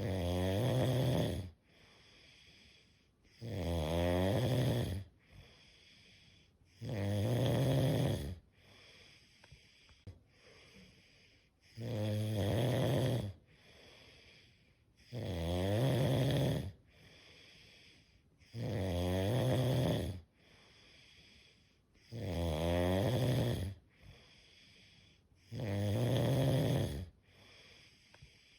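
Steady, rhythmic snoring: eight long buzzing snores, one about every three and a half seconds, with quiet breathing between them.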